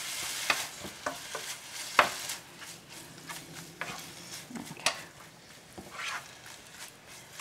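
Lean ground beef sizzling in a hot skillet while a wooden spoon stirs and breaks it up, scraping and tapping the pan in irregular strokes.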